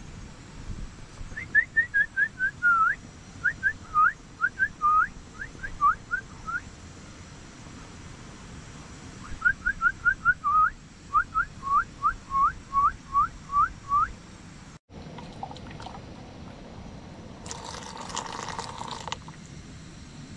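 A bird singing two long runs of quick whistled notes, each a short upward-flicking whistle, about three to four notes a second, with a pause of a few seconds between the runs.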